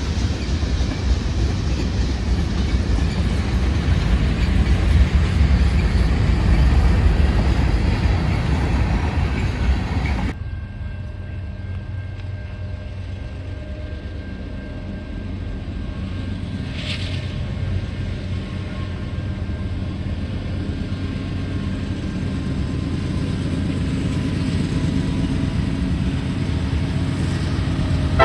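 A train running on the rails, loud and dense, with wheel noise. About ten seconds in it cuts off abruptly to a quieter, steady rumble with a faint engine hum that slowly grows louder as a train approaches. There is a brief high hiss about seventeen seconds in.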